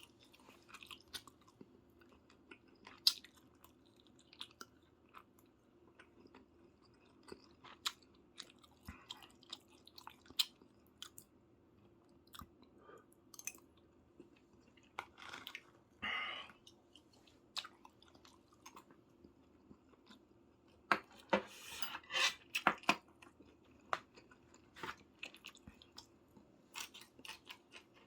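Close-miked chewing and biting of soy-braised chicken (jjimdak): scattered wet mouth clicks, with busier spells of chewing about halfway through and again, loudest, late on.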